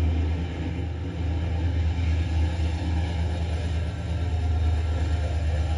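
Passenger train passing close along the platform: a steady, loud rumble of the coaches' wheels on the rails, with locomotive 201 going by about four seconds in.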